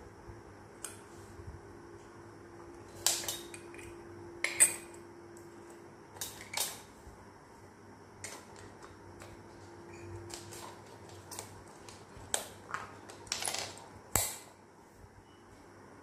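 Miniature stainless steel toy pots, plates and cups clinking against each other and being set down on a wooden tabletop: scattered light metallic knocks with short ringing, at irregular moments, the sharpest about fourteen seconds in.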